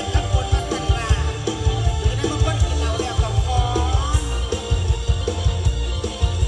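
Mor lam band music with a steady driving beat and heavy bass, a short repeating melodic figure, and sliding notes above it.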